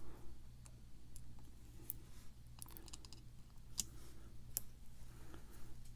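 Light, scattered clicks of small metal lock pins and tools being handled, about half a dozen sharp ticks spread unevenly over a low steady hum.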